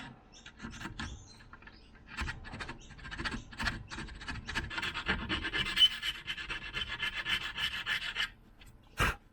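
A hand tool scraping metal inside the drilled-out hex socket of a Fox 40 fork axle, cleaning up the socket in quick irregular strokes that grow dense and rapid about halfway through. A single sharp knock comes near the end.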